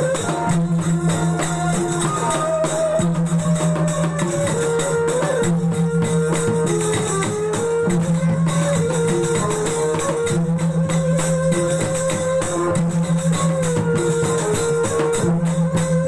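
Sasak gendang ensemble playing cilokak music: two-headed gendang drums beat a quick steady rhythm with jingling cymbal-like percussion, under a wavering, gliding melody line.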